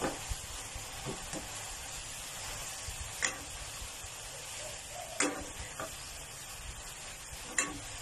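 Stir-frying greens in a hot pan: a steady sizzle, with the utensil scraping and knocking against the pan every second or two. The three sharpest knocks come about three, five and seven and a half seconds in.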